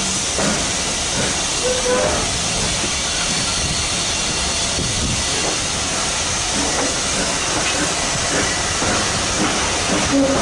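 BR Standard Class 9F steam locomotive 92134 hissing steadily with steam as it hauls the train slowly out along the curve, heard from a carriage window along with the running of the coaches on the rails.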